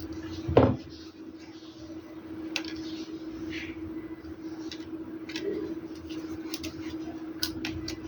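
Handling noises: a dull thump about half a second in, then scattered light clicks and taps, over a steady hum.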